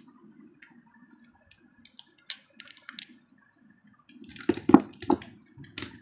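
Small glass nail polish bottles being handled and set down on a plastic surface, with scattered light clicks and a louder cluster of knocks about three-quarters of the way through.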